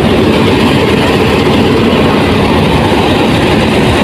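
Diesel locomotive running loud and close, a steady heavy engine noise without pauses.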